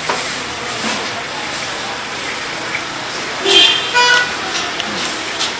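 Steady street background noise with a brief vehicle horn toot about three and a half seconds in.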